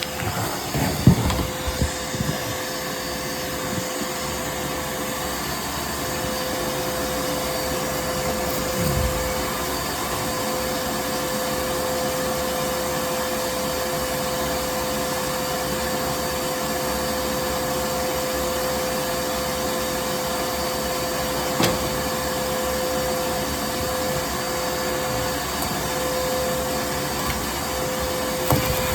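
Dryer-vent cleaning equipment running steadily: a motor with a constant whine as the rod and brush work up the vent duct. There are a few knocks and rattles in the first seconds and a single click past the middle.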